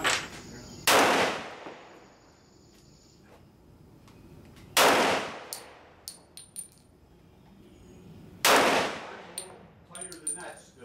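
Three single pistol shots fired slowly, about three and a half to four seconds apart, each with a short ringing tail.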